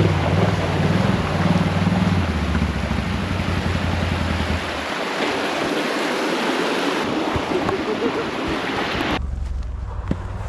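Rushing water and wind noise, with a low engine hum under it for the first five seconds; about nine seconds in the sound changes abruptly to a duller, quieter background.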